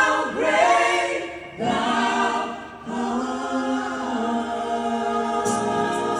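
A group of singers singing together in harmony, largely unaccompanied, in several phrases ending on long held notes. Near the end a few sharp hits come in.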